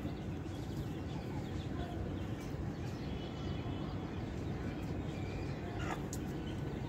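Aseel chickens clucking and calling faintly over a steady low background rumble, with a brief tap near the end.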